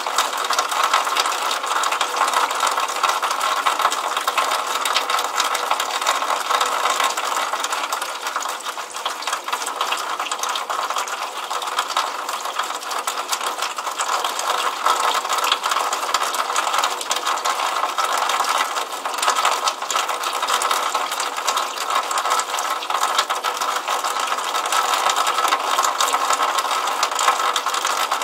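Water pouring steadily from the end of a drainpipe and splashing into a puddle on pavement: a continuous, dense patter with no deep tones.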